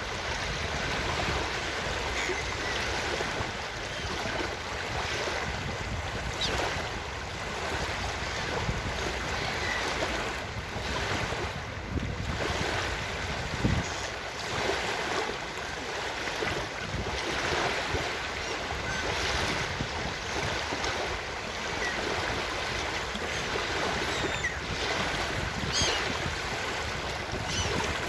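Ocean surf washing onto a beach: a continuous rushing that swells and eases slowly.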